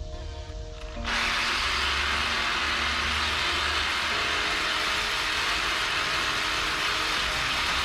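Power cutting tool, likely an angle grinder, starting about a second in and cutting through steel angle iron with a loud, steady hiss.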